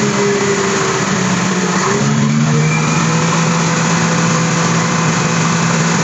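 Concrete mixer truck's diesel engine running steadily under a dense rushing noise while wet concrete is discharged down the chute.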